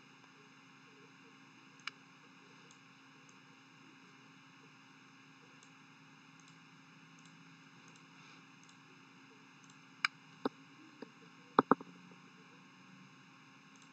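Computer mouse clicking against faint room hiss: a single click about two seconds in, then about five clicks between ten and twelve seconds, two of them a quick double click.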